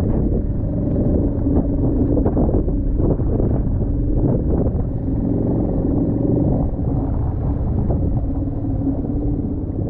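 Outboard motor of a small inflatable boat running steadily, a low rumble with a few brief knocks in the first half.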